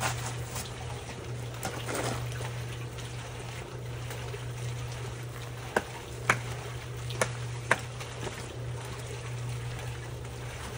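Wet concrete being worked, a wet sloshing and scraping over a steady low hum, with four sharp knocks a little past the middle.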